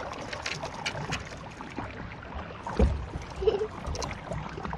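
Water lapping at a boat hull, with many short clicks and knocks as a fishing rod and reel are worked to bring in a fish. A dull thump comes about three seconds in.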